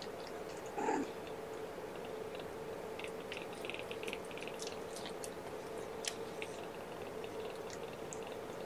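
Mother cat licking and grooming her kittens while they suckle: soft wet clicks and smacks over a steady low hum, with a brief kitten squeak about a second in.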